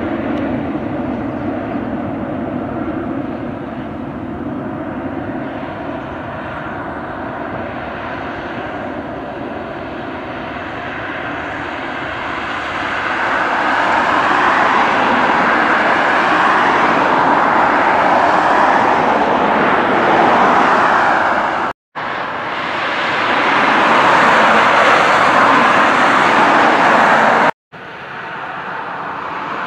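Jet engine noise from a British Airways Airbus A320-family airliner climbing away after take-off: a steady rushing rumble that grows louder about halfway through. The sound cuts out to silence twice, briefly, near the end.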